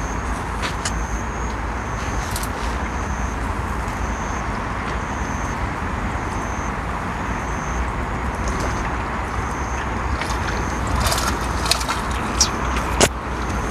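Steady outdoor night background noise, with a thin high-pitched call repeating about once a second. A few sharp clicks and taps come near the end, the loudest about a second before the end.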